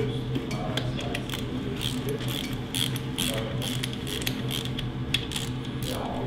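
Ratchet wrench clicking in a run of short, even strokes, about two to three clicks a second, over a steady low hum.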